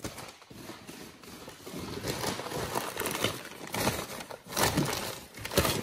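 Paper packing crumpling and rustling as it is handled and pulled away, in irregular bursts with louder crinkles toward the end.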